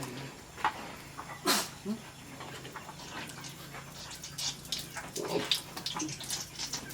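Short animal calls and scuffling noises, with a sharp knock or squeal about a second and a half in and a busier run of short sounds near the end.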